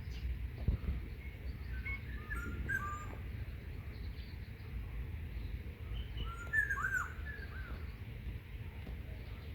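Small birds chirping in short bursts of quick, falling notes, with a flurry about two seconds in and another near the end, over a low steady rumble.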